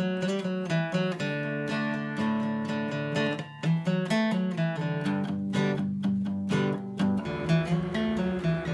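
Background music: acoustic guitar strumming and picking, with notes changing throughout.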